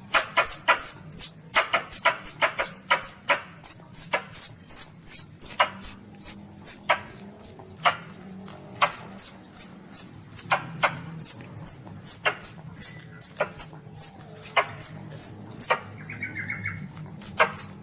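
Recorded calls of a baby Asian palm civet (luwak), played as a hunting lure: a rapid run of short, high-pitched squeaks, each dropping in pitch, about two or three a second with a couple of brief pauses.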